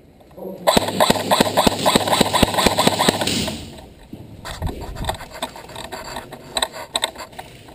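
Airsoft gun firing a long rapid burst of about two and a half seconds, a fast even rattle of shots, followed by scattered single clicks and knocks.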